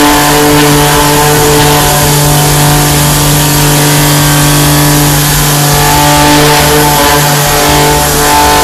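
AWEA FM-99V five-axis CNC milling machine running a cut: a loud, steady hum of several fixed pitches over a constant high hiss.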